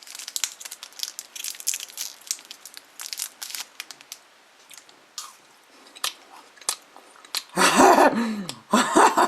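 Foil wrapper of a chocolate surprise egg crinkling and crackling in rapid clicks, thinning to scattered clicks. Near the end come two louder pitched sounds, each falling in pitch.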